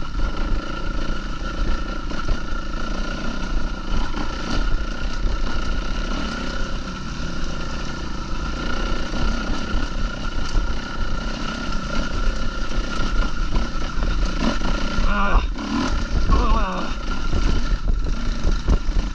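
Kawasaki KX450 four-stroke dirt bike engine running under load while climbing a rocky trail, its pitch rising and falling with the throttle, with wind rumble on the helmet microphone.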